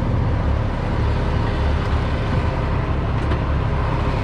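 Heavy truck's diesel engine idling steadily as a low, even rumble, with a couple of faint clicks about three seconds in.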